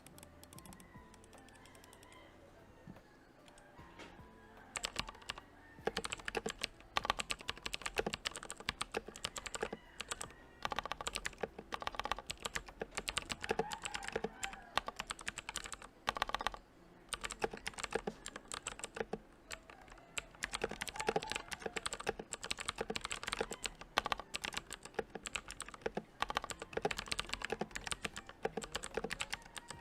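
Rapid typing on a mechanical keyboard with clicky blue switches lubricated with Vaseline, a dense run of key clicks. It starts about five seconds in and breaks off briefly about halfway through.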